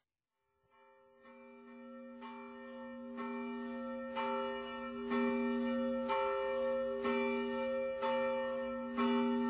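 A church bell tolling slowly, about one stroke a second, fading in from silence and growing steadily louder.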